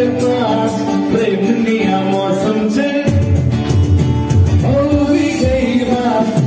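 A man singing into a microphone, amplified over backing music; a heavy bass line comes in suddenly about three seconds in.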